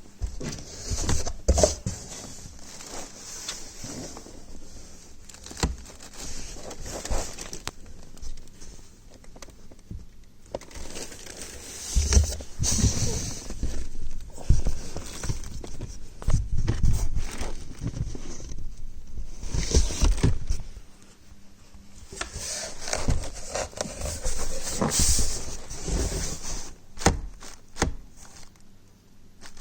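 Irregular handling noises: scrapes, rustles and knocks, with some low thumps, as a computer monitor and its cardboard box and packing are handled.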